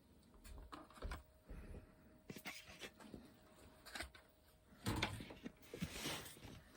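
Faint scattered clicks, knocks and rustles of handling at close range, with a busier cluster near the end and a faint steady tone through the middle.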